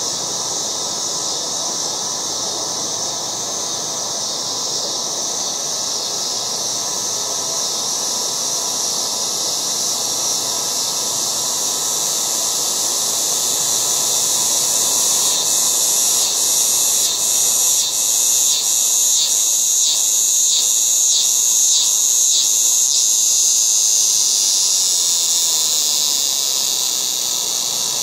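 Cicadas in full chorus: a loud, steady, high-pitched buzz that swells louder about halfway through, pulsing about twice a second for several seconds, then eases slightly near the end.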